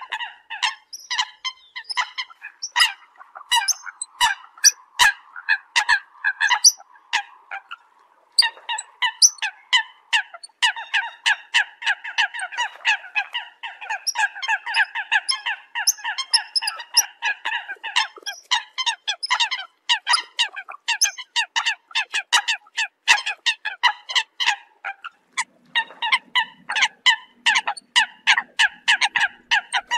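Eurasian coots calling: a dense, rapid string of short, sharp notes, many a second, breaking off briefly about eight seconds in. This is the flock call that brings coots in.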